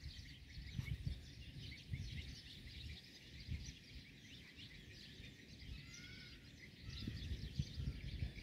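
Many small birds chirping and twittering without pause, over an irregular low rumbling that grows stronger near the end.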